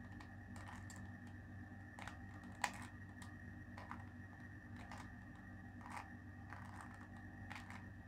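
Faint plastic clicks of a 2x2 Rubik's cube's layers being turned by hand, about one turn a second through a move sequence, with one louder click about two and a half seconds in. A steady low hum runs underneath.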